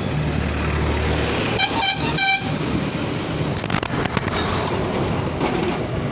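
A vehicle horn sounds three short toots in quick succession over a steady background rush of noise.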